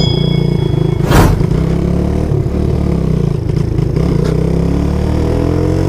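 Suzuki GN125's single-cylinder engine running as the bike rides off, cold and carbureted, so it is not revving freely; its pitch rises near the end. A chime rings out at the start, and there is a brief burst of noise about a second in.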